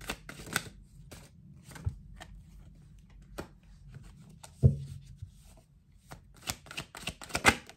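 A deck of tarot cards shuffled by hand and dealt onto a table: scattered soft snaps and flicks of the cards, a dull knock about halfway through, and a quick run of louder card snaps near the end.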